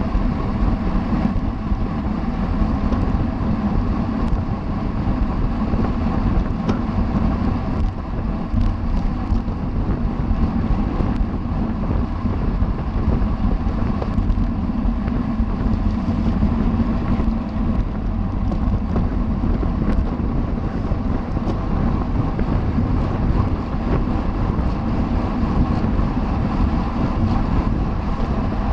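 Steady wind rushing over the microphone of a camera on a racing bicycle at speed, mixed with road and tyre noise.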